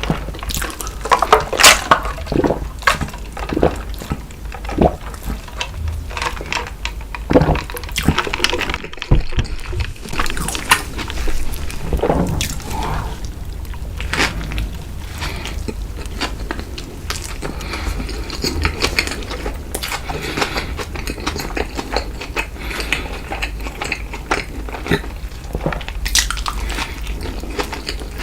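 Close-miked chewing and wet mouth sounds of a person eating, with irregular clicks and smacks.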